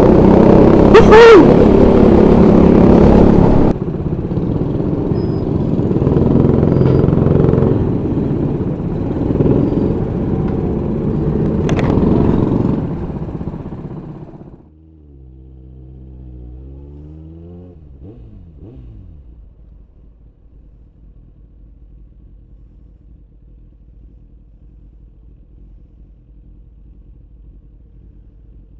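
Loud go-kart engine with heavy wind noise and a sharp knock about a second in and again near twelve seconds. At about fourteen seconds it cuts to a much quieter motorcycle engine, whose pitch falls and rises a few times before settling into a steady low hum.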